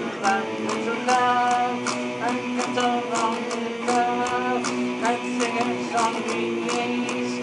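Solo guitar playing a hard rock song: strummed chords in a steady rhythm, with ringing, sustained notes.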